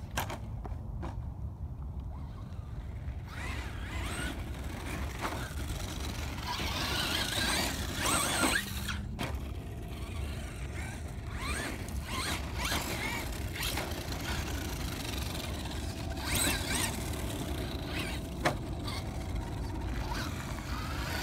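Brushless electric motor of a 1/10 Traxxas Slash 2WD RC monster truck whining up and down with the throttle as it drives, several rising and falling whines, over the scrape of its tyres on loose crushed-shell ground.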